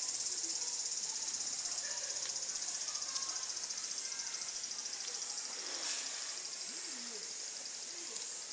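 Steady, high-pitched insect chorus: a continuous fast-pulsing buzz that the people there call noisy.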